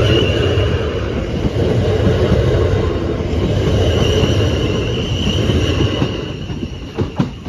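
South Western Railway Class 450 Desiro electric multiple unit passing at speed, a steady loud rumble of wheels on rail with a thin high ring over it. The noise falls away as the last coach clears, about six seconds in, followed by a few sharp clicks.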